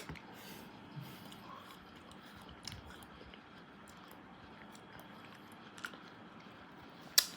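Faint mouth sounds of someone eating ice cream, with a few soft clicks and a sharper click near the end.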